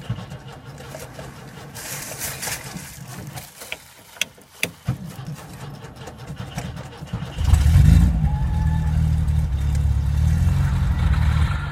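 Cold van engine catching on a hard start in 30-degree weather: after several seconds of quieter noise and a few sharp clicks it fires about seven seconds in, revs up briefly, then settles to a steady fast idle.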